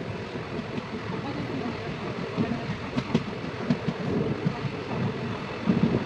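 Moving train: a low, uneven rumble with a few sharp clicks about three seconds in.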